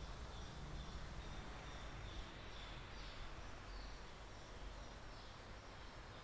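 Faint steady background noise with a low rumble, and a small, high chirp repeating steadily over it.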